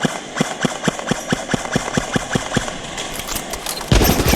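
Airsoft gun firing a steady run of rapid shots, about four or five a second, then much louder, denser gunfire breaks in near the end.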